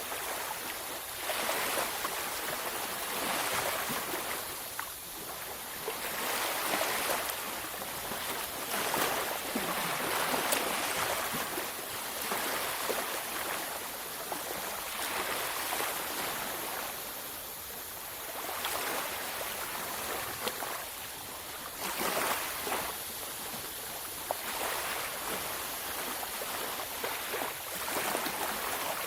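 Ocean waves washing onto a beach in a continuous surf, with swells rising and falling every few seconds.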